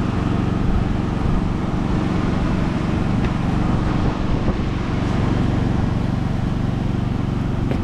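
A steady low mechanical drone, like a machine or motor running in the background, with a few faint clicks.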